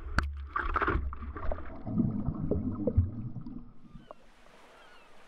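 Water splashing and sloshing around a paddleboard, with wind rumble on the microphone and a sharp knock about a fifth of a second in. After about four seconds it drops to a faint steady hiss.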